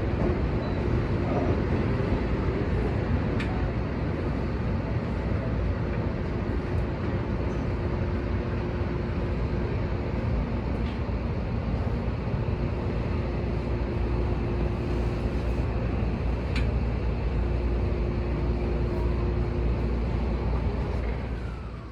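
Steady rumble and hum of a Seibu 20000 series electric train, heard from the front of the car, with a faint steady tone that comes and goes. The level drops near the end.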